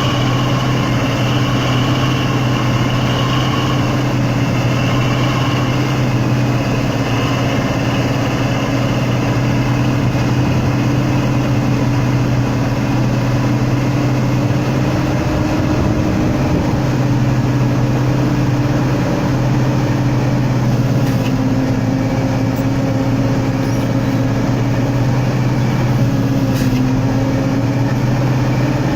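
Logging truck engine running steadily with a constant low hum.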